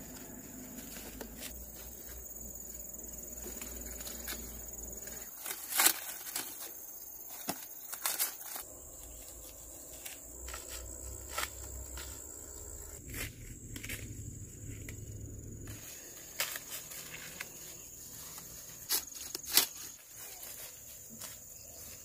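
Dry corn stalks and leaves rustling and snapping as ears of corn are picked by hand and the picker moves through the stalks, with a few sharp cracks. A steady high insect chirring runs underneath.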